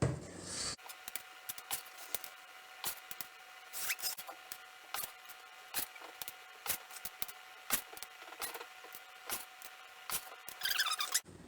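Irregular clicks, taps and scrapes of an ice cream scoop working cupcake batter out of a bowl and into paper liners, with a denser scrape near the end.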